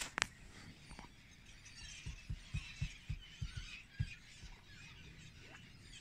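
A large flock of gulls calling over one another in a constant high chatter while they wheel and feed. A sharp click comes just after the start, and a run of low thumps, about three or four a second, sounds in the middle.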